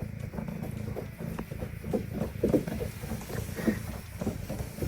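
Large wooden cat wheel turning with a steady low rumble, with irregular patter and soft knocks from a cat's paws running in it.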